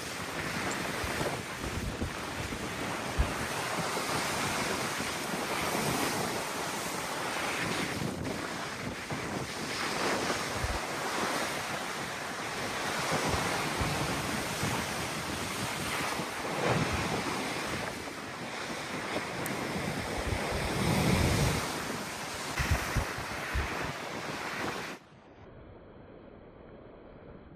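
Big sea waves breaking and surging in strong gusting wind, the wind buffeting the microphone; the surf swells louder several times. Near the end it cuts off suddenly to a faint, muffled hiss.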